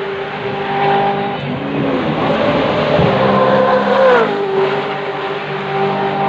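V8 race cars passing at speed, engines at high revs. The engine note falls sharply as a car goes by just after four seconds in, while other cars' engines rise and fall behind it.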